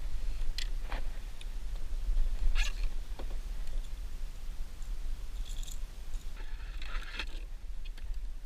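Wind buffeting the microphone as a steady low rumble, with scattered light knocks and clicks, the loudest cluster near the end.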